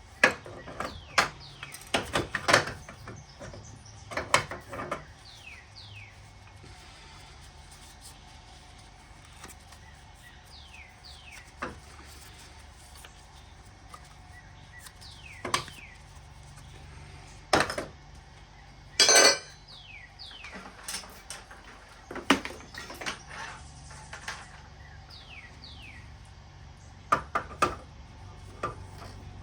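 Metal furnace burner and pilot-light parts clinking and clanking as they are handled and taken apart, in scattered sharp knocks, with a longer rattling clatter about two-thirds of the way through.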